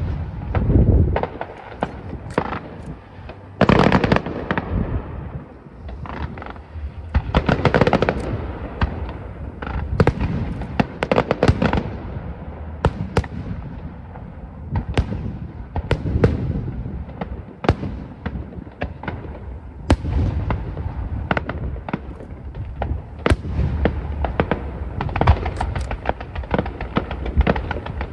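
Aerial fireworks show: shells bursting in a dense, continuous barrage of sharp bangs and crackles, with the heaviest booms about four and eight seconds in.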